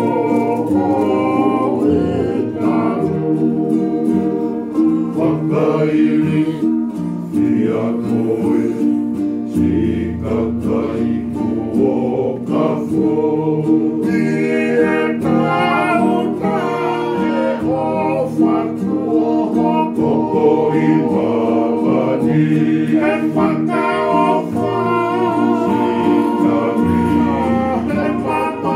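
A group of men singing together, accompanied by acoustic guitars.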